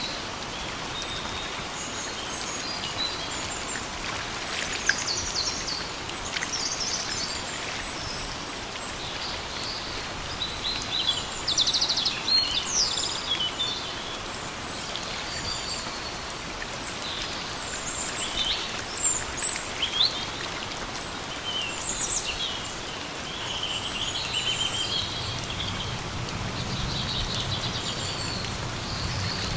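Steady rain falling, with small birds chirping and calling on and off throughout.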